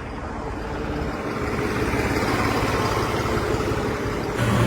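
Tractor engine running while being driven, slowly getting louder; near the end a strong steady low drone comes in.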